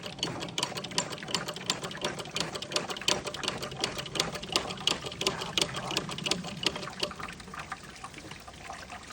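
Rapid, irregular clicking and crackling, with a trickle of liquid underneath and a faint low hum that fades out about seven seconds in.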